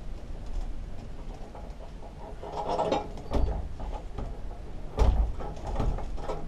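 Metal clunks and scrapes as a steel rotary mower blade is offered up and fitted onto the blade spindle, with a cluster of knocks around three seconds in and a heavy thump about five seconds in. A steady low rumble of wind on the microphone runs underneath.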